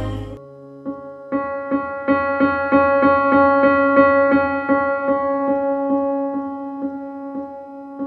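Instrumental title music: one note struck about three times a second, ringing on between strikes and slowly fading over the last few seconds.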